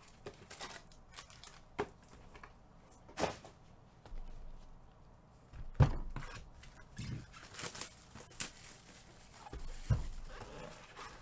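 Trading cards and their packaging being handled on a table: tearing and crinkling with scattered light knocks, and two louder thumps about six and ten seconds in.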